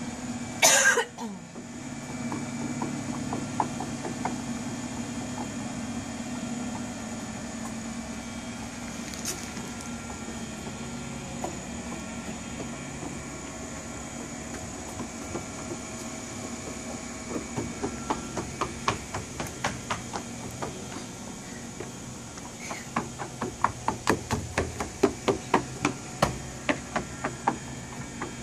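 A child's footsteps in sandals on a wooden deck, sharp knocks about two or three a second, coming thickly in the last third as she runs. Under them a steady low hum from the running bubble machine, and about a second in a short loud falling swoosh.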